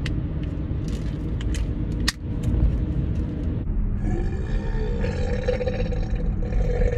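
A woman belches after swallowing a pre-workout drink from a shaker bottle: one long, drawn-out pitched burp begins about four seconds in and lasts some three seconds, partly muffled by her hand. Before it there is the low rumble of the car cabin and a sharp click about two seconds in.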